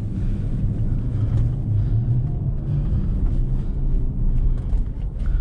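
A steady low rumble with a few faint clicks near the end.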